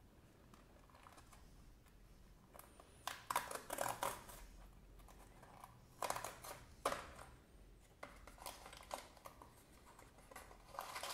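A fidget cube kit's box being opened and its contents handled: several bursts of rustling and clicking from the packaging and small plastic parts.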